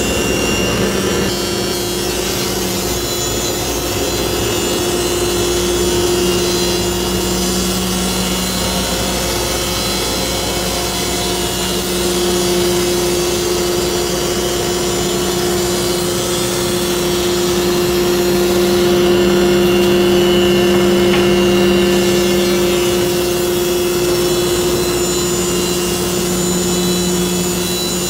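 Spindle of the Lee Hyun multi wood machine running at about 5800 rpm with an 80-grit sanding disc, sanding across a flattened wood slab while the dust-collection hose draws air. A steady whine sits over a rushing hiss, swelling a little past the middle.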